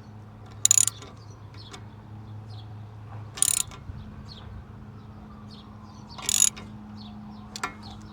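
Ratchet wrench clicking in three short bursts about three seconds apart, as a rear disc-brake caliper piston is wound back into its bore.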